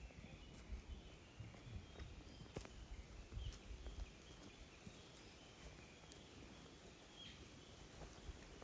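Faint outdoor ambience: scattered soft taps and clicks over a low rumble, with a few faint short chirps.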